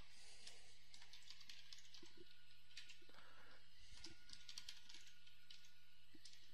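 Computer keyboard typing: an irregular run of faint, quick key clicks as a line of code is typed, over a low steady hum.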